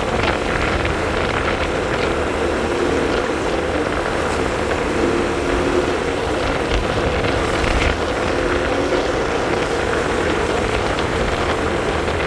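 Honda motor scooter underway at a steady cruise: its small engine runs evenly beneath a constant rush of wind on the microphone.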